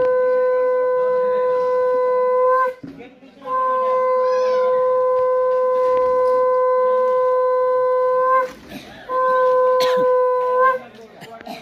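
Conch shell (shankh) blown as part of a Hindu puja: a steady, held note that stops about three seconds in, then a long blast of about five seconds and a shorter blast near the end, each lifting slightly in pitch as it ends.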